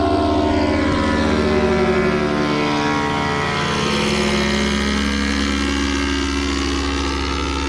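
Engine and propeller of a small ultralight floatplane flying low overhead. Its drone drops in pitch between about two and four seconds in as it passes over, then holds steady as it heads away.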